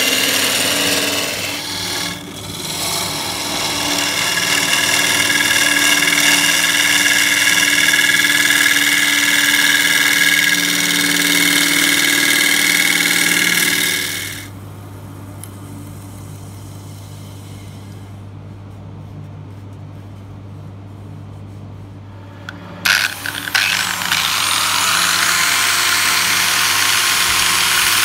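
Wood lathe spinning a large segmented wooden bowl while a hand-held turning gouge cuts its inside: a loud, steady hiss of wood being shaved. About halfway through the cutting stops and only the lathe motor's low hum remains. About two thirds of the way through, an angle grinder fitted with a foam-backed sanding disc starts with a few sharp knocks and runs steadily, sanding the spinning bowl.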